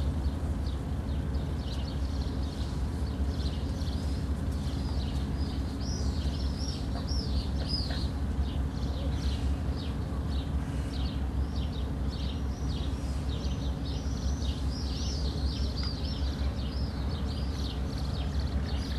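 Many small birds chirping in short, quick high calls over a steady low rumble.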